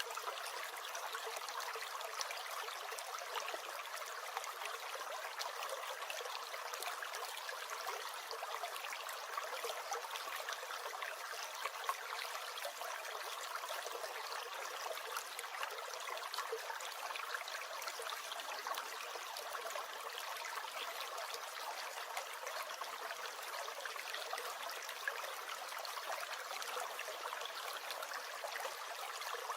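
A small stream gurgling and trickling steadily, a continuous light babble of running water without any deep rumble.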